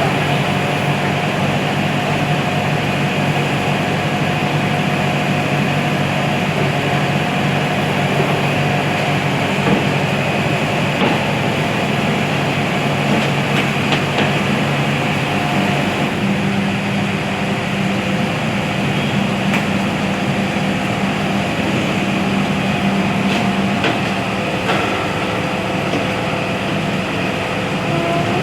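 JCB earthmover's diesel engine running steadily, its pitch shifting slightly about halfway through as the load changes, with a few faint metallic knocks.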